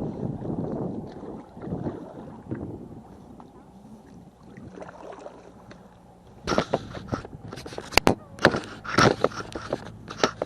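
Knocks and handling sounds in a canoe on a lake. A low rumble of wind and water gives way, about six seconds in, to a run of sharp knocks and clatters against the boat.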